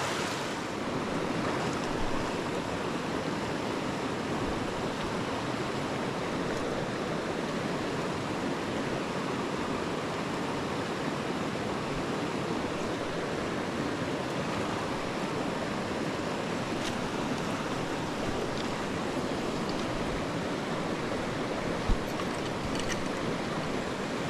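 Small rocky stream rushing over rocks in shallow riffles: a steady wash of flowing water. A single short thump comes near the end.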